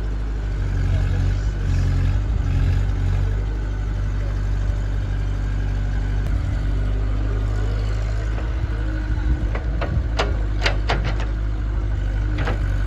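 Diesel engine of heavy machinery running steadily. A few sharp knocks come about ten seconds in and again near the end.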